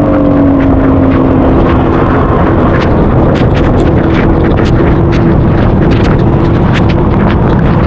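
Motorcycle engine running under way, buried in loud wind rush on the action camera's built-in microphone, with many sharp ticks of heavy rain striking the camera.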